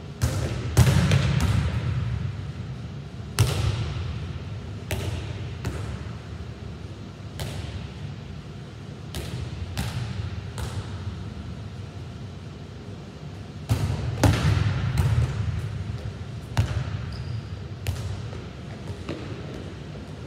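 A volleyball struck against a wall and passed back off the forearms, giving an irregular series of sharp smacks and thuds that echo in the hall, over a steady low hum.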